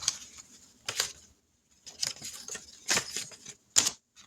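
Pen or marker scribbling on paper in short scratchy strokes, colouring in squares on a tracker sheet.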